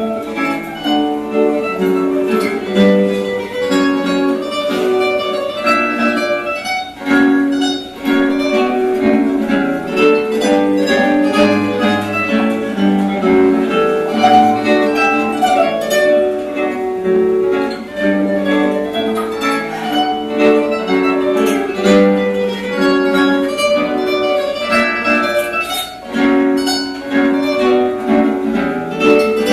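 A quartet of guitars playing an ensemble piece together, plucked notes in several parts at once, with short dips in level about seven seconds in and again near the end.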